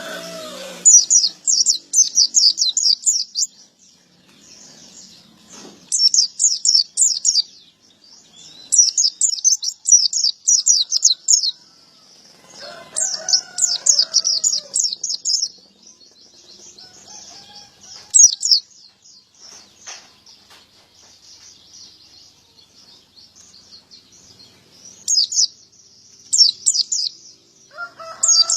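Male white-eye (pleci) singing: bursts of rapid, high twittering a couple of seconds long, repeated about six times with short pauses. A lower, separate call from another bird comes about halfway through.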